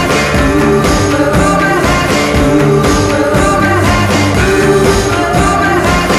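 A song with a band playing at a steady beat; no sung words are picked out in this stretch.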